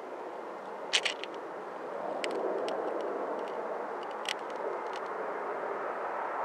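Steady rushing rumble of distant jet aircraft beside an airport runway, with several sharp clicks: a quick cluster about a second in, then single clicks spread through the middle.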